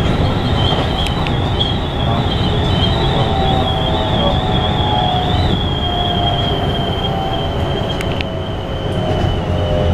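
Keikyu New 1000 series commuter train heard from inside the car: the steady low rumble of running, with a high wavering wheel squeal and a faint whine from the Toshiba IGBT-VVVF inverter drive slowly falling in pitch as the train slows.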